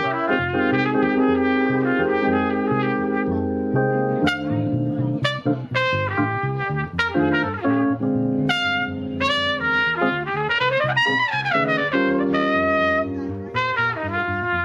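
Brass-led jazz music: trumpet and other horns playing a melody over a walking bass line.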